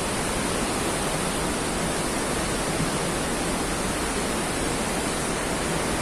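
Steady rush of the Palovit waterfall, a 15 m high fall with a very heavy flow: an even, unbroken roar of falling water.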